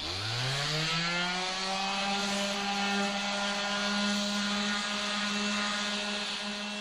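Electric random-orbit palm sander starting up, its whine rising over about a second to a steady pitch, then running steadily as it sands the edge of a maple board with 80-grit paper.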